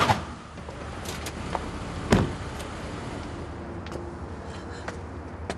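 Car door shutting with one sharp thud about two seconds in, over the low hum of a car idling. A few light clicks follow.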